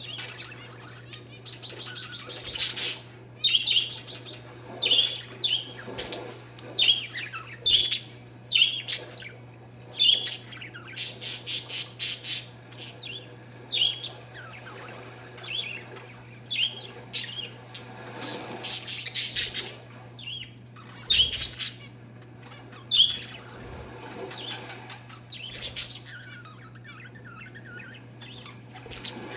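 Pet parakeets and zebra finches chirping: many short, high calls in quick bouts with brief pauses between them, over a steady low hum.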